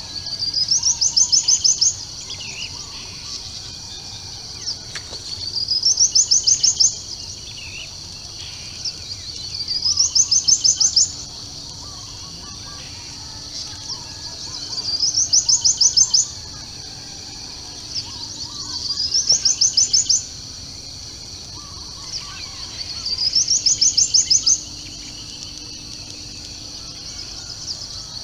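A loud, high trill repeated at even spacing, about every four seconds. Each call climbs in pitch and then runs on as fast, rapid pulses for a second or two. Underneath are a steady high hiss and faint scattered chirps of other birds.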